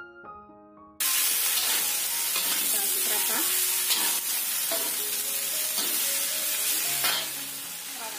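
Tofu, eggplant and green beans sizzling in hot oil in a wok while a metal spatula stirs and scrapes them. The sizzling comes in suddenly about a second in; before that only light background music is heard, and the music carries on faintly under the frying.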